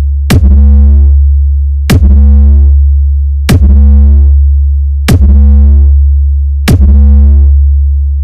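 Electronic DJ sound-check music: a continuous, very loud deep sub-bass tone under five sharp hits about every 1.6 seconds, each trailed by a short fading tone.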